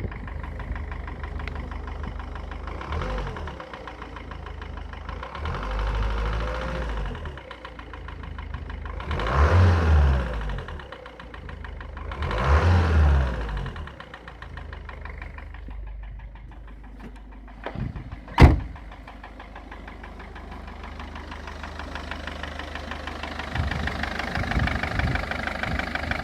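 Mercedes-Benz Vito W638 engine idling with a rapid knock, revved up three times. The knock is the engine fault this recording is made to show. About two-thirds of the way through there is one sharp, loud crack.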